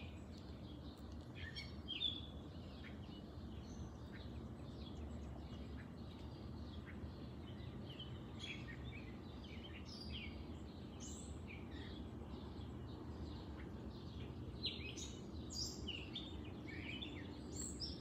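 Songbirds chirping and calling in a dawn chorus: many short high notes scattered throughout, busier in the second half, over a faint low steady background noise.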